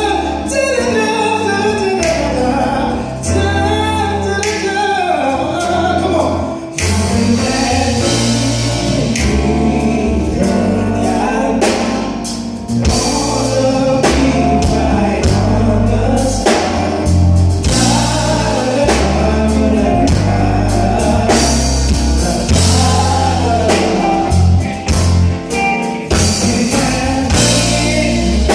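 A male R&B singer sings a flowing melody over instrumental backing, with bass and drums coming in strongly about seven seconds in and keeping a steady beat.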